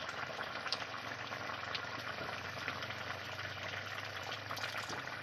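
Chicken and potato curry bubbling in an iron kadai over a wood fire, with many small crackly pops; toward the end a bowl of milky liquid is poured into the boiling curry.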